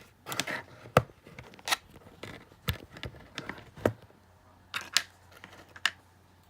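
Handling noise as a camera is set onto a tripod: about seven irregular sharp clicks and taps mixed with short scraping rustles.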